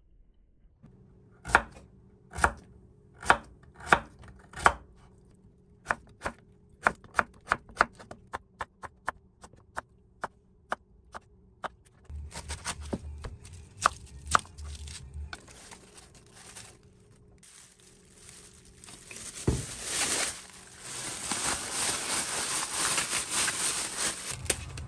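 Kitchen knife chopping on a cutting board: five heavy strokes a little under a second apart, then quicker, lighter chops about three a second. A loud steady hiss comes in near the end.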